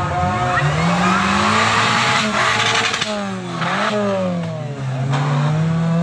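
Off-road 4x4 engine revving hard and unevenly, its pitch climbing and dropping again and again as the throttle is worked.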